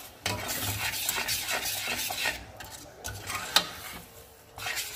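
A utensil stirring a sauce in a pan, scraping against the pan with some sizzling, just after chicken broth has been added. A sharp clink of the utensil on the pan about three and a half seconds in, then quieter stirring with a few light knocks near the end.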